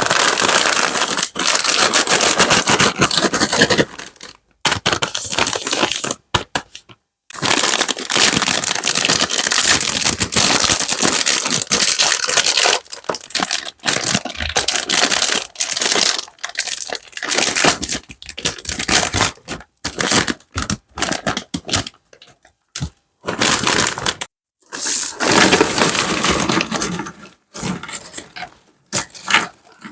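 Crinkling and crackling of sweets and their plastic wrappers being handled and poured onto a platter, in stretches of a few seconds that stop abruptly several times.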